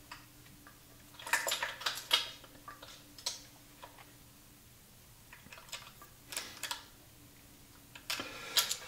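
Small metal parts clinking and rattling in a few short clusters as an ignition coil and its mounting plate are handled and tried against a motorcycle frame, over a faint steady hum.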